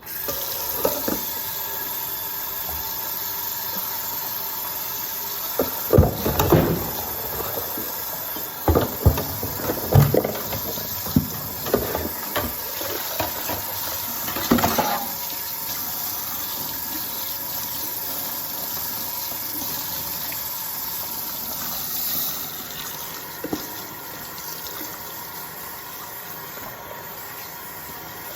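Tap water running steadily into a sink, with dishes and a pot knocking and clattering for several seconds in the middle; the flow turns a little softer near the end.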